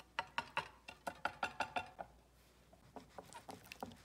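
Wire balloon whisk beating egg yolks in a stainless steel bowl: quick clicking strokes of the wires against the metal, about seven a second, going softer for the last second or so.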